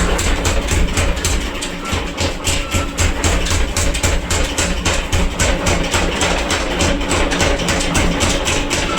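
Background music with a fast, even beat of sharp knocks over a steady low tone.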